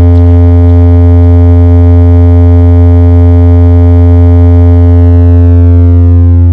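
A very loud, sustained synthesizer bass note held on one low pitch, a speaker-check test tone in a DJ track. From about five seconds in its upper overtones fade away, leaving the deep bass.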